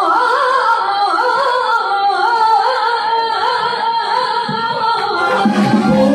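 A woman singing live through a band's PA: a long, ornamented melodic line with wavering vibrato over a light accompaniment. Lower band notes come in under her near the end.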